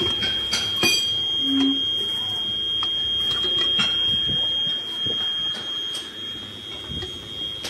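A steady high-pitched whine runs throughout, with scattered light knocks and scrapes as patterns and a steel molding box are handled in foundry sand. A short low hum sounds about a second and a half in.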